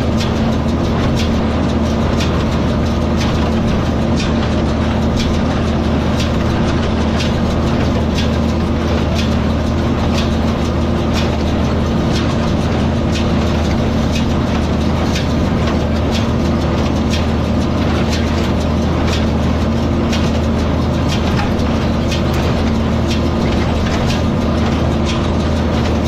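Tractor engine running steadily under load while powering a small square hay baler, with sharp clacks repeating through it about once or twice a second.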